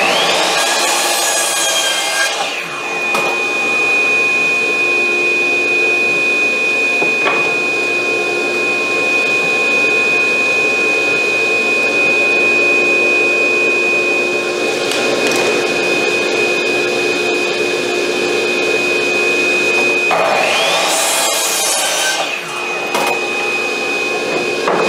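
Electric power saw cutting wooden boards, two loud cuts near the start and about twenty seconds in, with a steady motor whine running between them.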